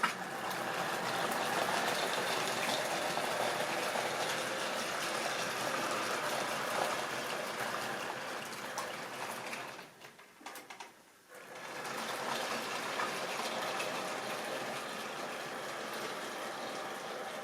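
Model train running on its track: a steady rushing rattle of the locomotive's motor and the wheels clicking over the rails. It starts suddenly, drops away for about a second and a half near the middle, then runs on.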